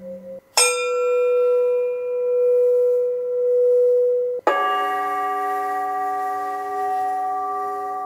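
Recorded singing bowl sound played from a Mavogel portable white noise machine's small speaker. A wavering ring cuts off, then a bowl is struck about half a second in and rings on one steady tone. About four and a half seconds in, a second strike at a different pitch rings on.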